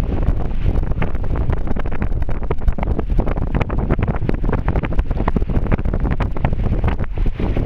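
Wind buffeting the microphone in irregular gusts aboard a sailboat under sail, over the rush of water in the boat's wake.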